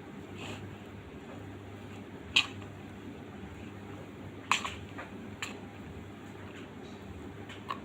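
A cooking utensil knocking against a pan four times, sharp and short, as fried rice is stirred, over a steady low hum.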